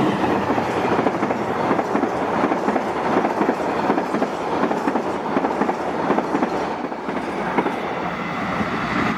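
Passenger train's carriages rushing through the station at speed, wheels clattering over the rail joints in a dense, steady run of clicks.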